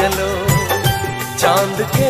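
Hindi film song playing as background music: an ornamented melody over a steady beat of about two strokes a second.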